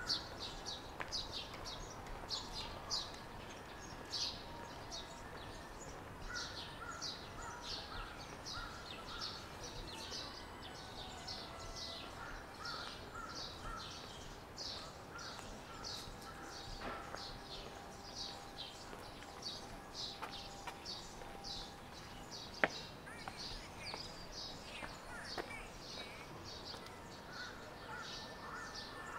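Park ambience with birds chirping and calling: short high chirps repeat about twice a second, with a lower chatter coming and going, over a steady background hum. A single sharp click is heard about two-thirds of the way through.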